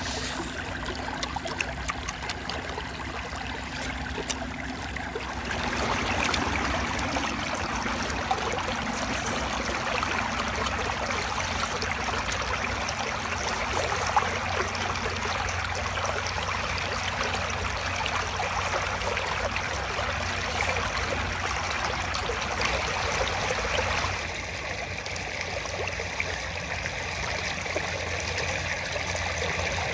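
Shallow floodwater running steadily over a low bank, a continuous rushing and trickling. It grows louder about six seconds in and eases somewhat near the end.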